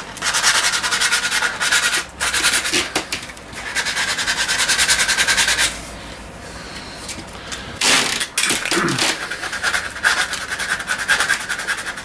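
Sandpaper worked by hand along a wooden snooker cue: quick, rhythmic back-and-forth rubbing strokes in runs of a couple of seconds, with short pauses and a brief bump of handling about two-thirds of the way through.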